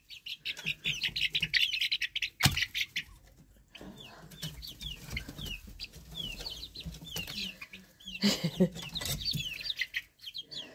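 Young chickens peeping: a busy chorus of short, high, falling peeps, with a single sharp knock about two and a half seconds in and a louder flurry of calls about eight seconds in.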